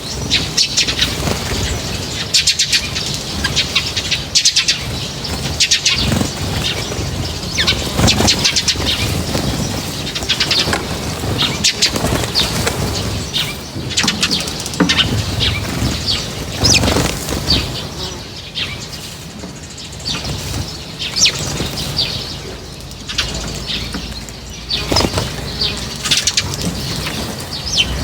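Small birds at an outdoor feeder: repeated wing flapping and fluttering, mixed with short chirps and quick high call notes.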